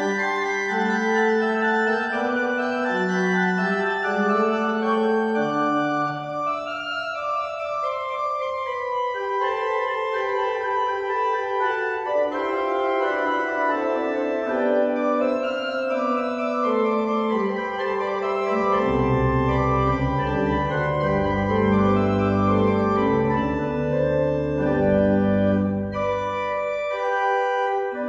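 Church pipe organ playing a many-voiced piece of sustained chords and moving lines. Deep pedal bass notes come in about two-thirds of the way through, and the music breaks off briefly near the end before going on.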